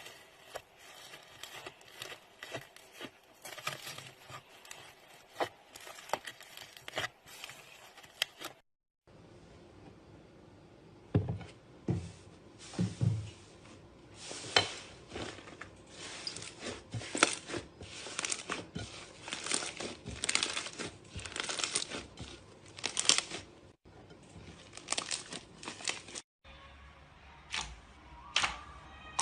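Slime being squeezed, stretched and poked by hand, giving dense, irregular crackles, small pops and clicks. The sound cuts out briefly about nine seconds in and again near the end.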